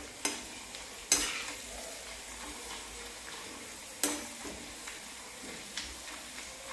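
Sun-dried green-banana sandige deep-frying in hot oil in a metal kadai: a steady sizzle, as a slotted metal spoon stirs them and clinks sharply against the pan a few times, loudest about a second in and at about four seconds.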